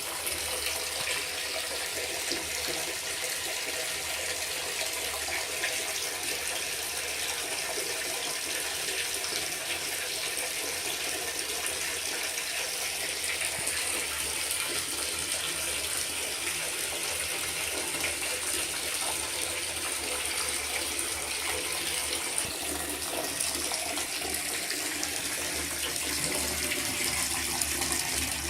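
Water running steadily from a faucet, starting suddenly.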